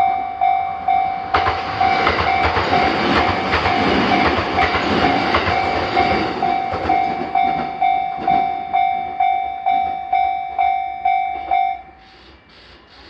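Japanese level crossing warning bell ringing its repeated clang about twice a second while a JR Narita Line train passes from about a second in, its wheels clattering over the rail joints for several seconds. The bell stops abruptly near the end once the train has cleared.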